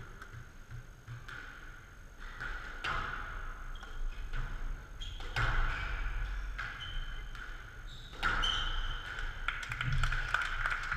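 Squash rally in a glass-walled court: the ball is struck by rackets and smacks off the walls and floor, sharp hits coming about a second apart and then stopping near the end.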